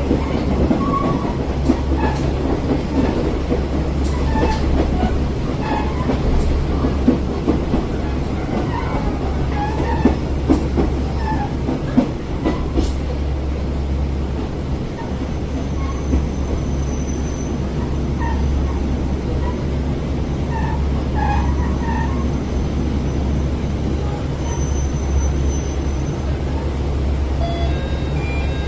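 Train running at speed, heard from inside a Matsuura Railway diesel railcar: a steady low engine and running drone with wheel-on-rail rumble and scattered clicks and knocks. Brief thin high squeals come about two-thirds of the way in and again near the end.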